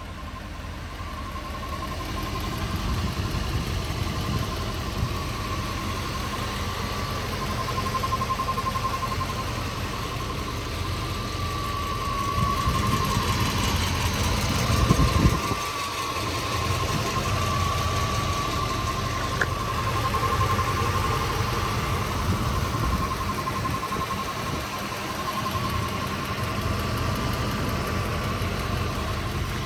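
1988 Mercedes-Benz 560SL's V8 idling steadily, a low rumble with a thin steady whine on top. There is a brief low buffet about halfway through.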